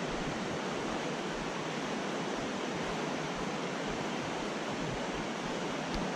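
Fast riffle of a mountain trout creek rushing over rocks: a steady, even rush of water.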